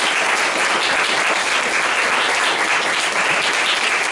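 Audience applauding, steady and loud.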